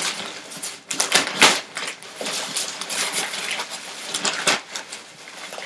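Crinkling and rustling of a plastic shipping mailer and the plastic-bagged clothes inside as they are handled and pulled out, in irregular crackles.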